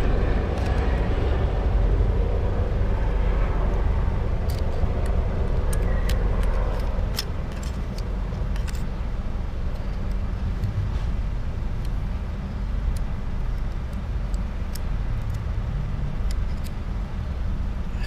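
Scattered light metallic clicks and taps of a hand tool working at a Honda EX5's automatic centrifugal clutch, over a steady low engine-like rumble from a vehicle.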